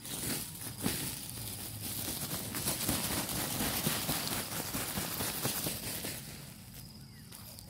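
Rustling and crackling of dry rice straw and stubble underfoot and under hand, mixed with a plastic bag crinkling, made of many small crackles that ease off near the end.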